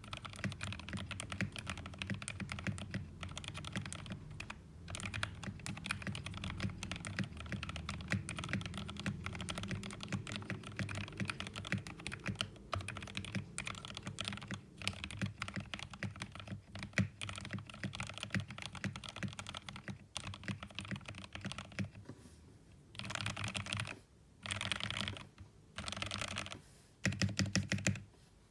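Pressplay Apollo 61 v2 mechanical keyboard with lubed Gateron Yellow linear switches, typed on fast and steadily. Near the end the keystrokes come in a few short, rapid bursts with brief pauses between them.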